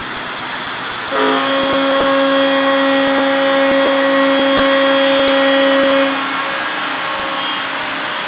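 A naval ship's typhon horn sounding one long steady blast. It starts about a second in and cuts off about six seconds in, with fainter horn tones lingering after it over a constant background hiss.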